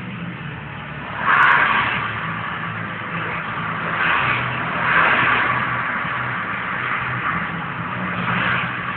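Road traffic: cars driving past on the road, with a steady engine hum under several swells of tyre and engine noise as vehicles go by. The loudest swell comes about a second and a half in.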